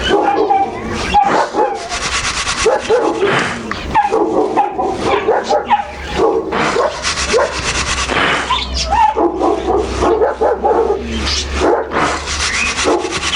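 Dogs barking and yipping over and over, with short whining calls in between.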